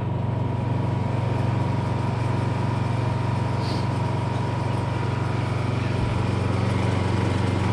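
Honda generator running at a steady speed while it powers a 48 V battery charger: an even engine hum with a thin steady high tone above it.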